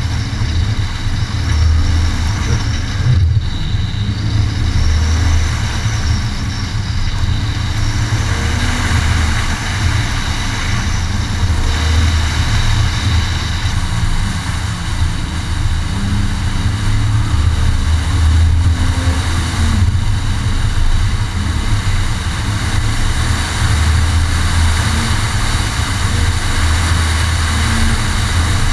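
Lexus IS300's 2JZ-GE inline-six running hard through an autocross run, rising and falling with throttle, heard through an aftermarket cat-back exhaust under a constant heavy low rumble.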